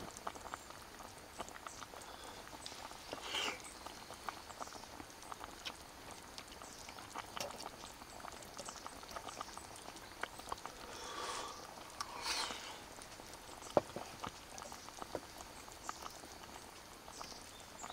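A fork clicking and scraping against a stainless steel camping cup in light, scattered clinks, with one sharper tap about 14 seconds in. A few brief faint calls sound in the background.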